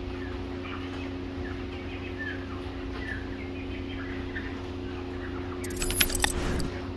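Faint short calls from a crowd of caged chickens over a steady hum. About five and a half seconds in, a jingly chime-and-click sound effect comes in louder, the kind that goes with an on-screen subscribe animation.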